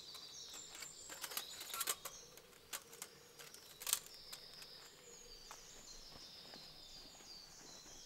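Faint songbird twittering over scattered small clicks and light knocks of camping gear being handled, most frequent in the first two seconds, with a sharper tap about four seconds in.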